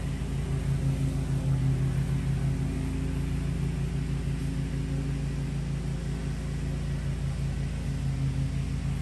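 Lawn mower engine running steadily nearby, a low pulsing hum.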